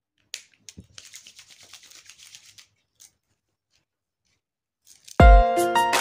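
A click, then hands rubbing together briskly for about a second and a half, spreading hair serum over the palms. About five seconds in, loud music with a heavy beat starts.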